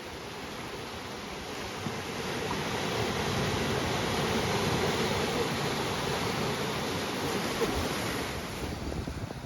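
Ocean surf: a steady wash of waves on the beach that swells to a peak midway and then eases off.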